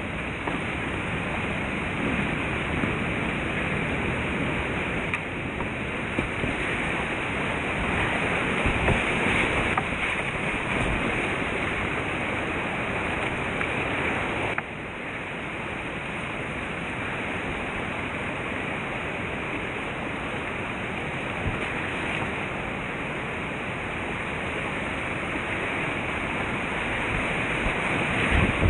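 Whitewater rapids rushing close to a kayak, a steady noise of churning water with some wind on the microphone; it drops a little in level about halfway through.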